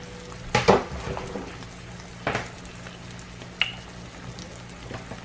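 A handful of sharp clicks and knocks as the cap of a glass Worcestershire sauce bottle is handled and twisted open. The loudest comes under a second in. Underneath is a steady sizzle of food frying.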